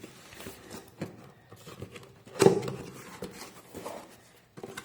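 A cardboard box being opened and its contents handled: rustling and light clicks of card and packaging, with one louder thump about two and a half seconds in.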